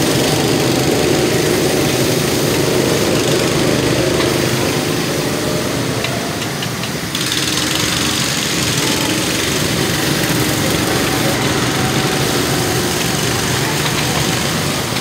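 Amusement ride machinery running steadily as the dinosaur cars spin past: a motor's hum under a rushing noise. The sound dips briefly about halfway through, then comes back with more hiss.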